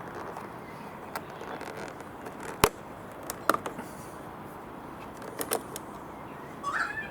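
A few separate sharp clicks and knocks over a steady background hiss, the loudest about two and a half seconds in and a quick double click near five and a half seconds.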